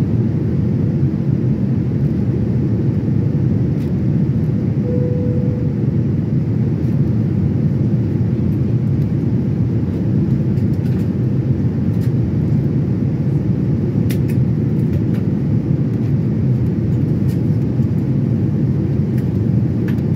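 Steady low rushing cabin noise inside a Boeing 787-9 airliner, even throughout, with a few faint clicks, most of them about two-thirds of the way through, and a brief faint tone about five seconds in.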